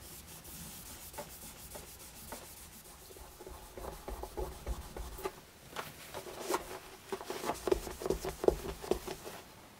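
Cloth rag rubbing buffing compound into the lacquer finish on the wooden back of a hurdy gurdy, buffing a sanded dull spot back to a shine. Quiet back-and-forth rubbing strokes that get busier and louder from about four seconds in.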